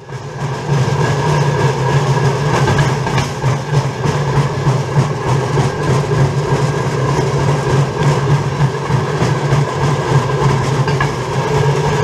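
Pedal-powered rail bike (draisine) rolling along a railway track, heard from on board: a loud, steady noise of its steel wheels running on the rails, with a few faint clicks.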